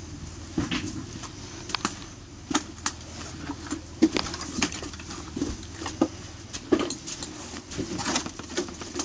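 Rustling and irregular sharp knocks as a firefighter in turnout gear walks and handles a garden hose, over a steady low hum.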